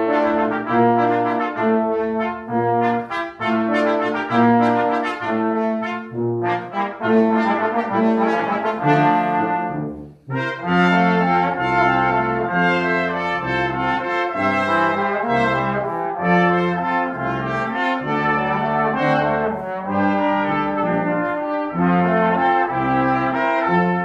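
Brass quintet of two trumpets, horn, trombone and tuba playing a classical arrangement in lively rhythmic chords over a moving bass line. The music breaks off for a moment about ten seconds in, then resumes.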